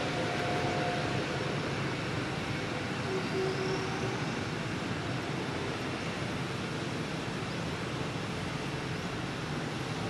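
Steady rushing background noise with no distinct events, and a few faint brief tones in the first few seconds.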